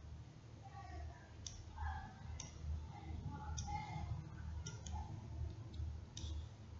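Computer mouse clicks: about six short, sharp clicks spaced irregularly roughly a second apart, over a low steady hum.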